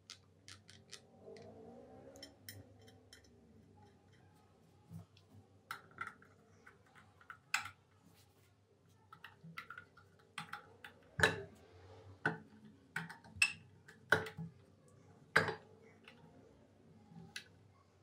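A flathead screwdriver and a small slotted steel screw clicking and tapping against an iron coffee grinder as the screw is set in and driven home. The clicks are sharp and irregular, light at first, with a handful of louder ones in the second half.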